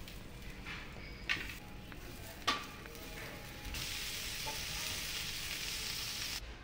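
Two sharp metal clinks, then a steady sizzle from a tray of scampi roasting in a wood-fired pizza oven. The sizzle cuts off suddenly near the end.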